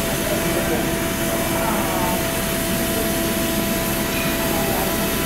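LMS Stanier Class 8F 2-8-0 steam locomotive standing at rest, giving off a steady hiss and roar of escaping steam, with a few faint steady tones running through it.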